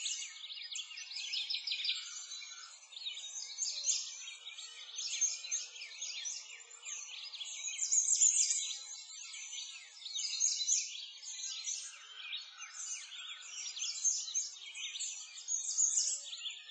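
Many birds chirping and singing together in a dense, continuous chorus of quick high chirps.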